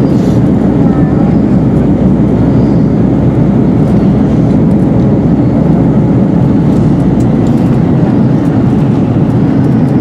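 Steady, loud cabin roar inside an Airbus A321-211 on approach, heard over the wing: the hum of its CFM56 turbofan engines mixed with rushing airflow, with the flaps extended.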